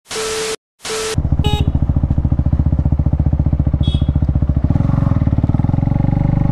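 A short burst of TV-static hiss with a steady beep, cut off twice. Then a KTM Duke 390's single-cylinder engine runs at low speed with an even pulse. About four and a half seconds in, the pulse quickens as the bike picks up speed.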